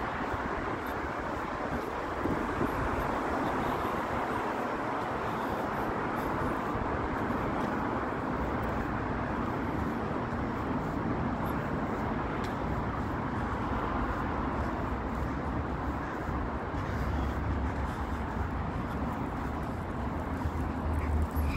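City street traffic ambience: a steady hum of road noise, with a low rumble that builds through the second half.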